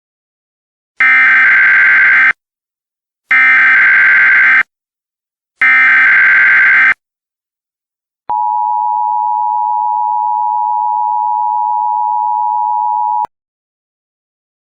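Emergency Alert System signal: three bursts of SAME digital header data, each just over a second long, then a steady single-pitched attention tone held for about five seconds, announcing a new alert.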